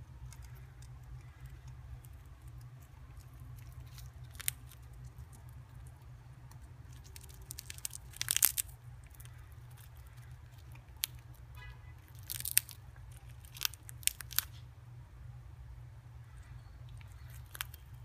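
Senegal parrot biting and tearing at a peanut shell held in its foot: sharp cracks and crunches every few seconds, the loudest cluster about halfway through, over a low steady hum.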